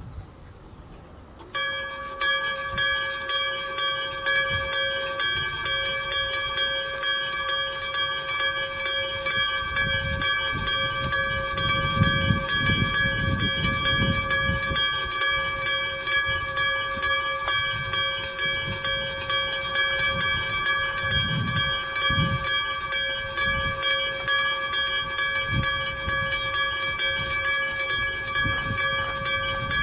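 Iron gong-type electric warning bell of a Japanese railway level crossing (Kyosan, 1970) cutting in abruptly and striking steadily about twice a second, each stroke leaving a clear ringing tone: the crossing's signal that a train is approaching. From about ten seconds in, a low rumble swells and fades beneath it.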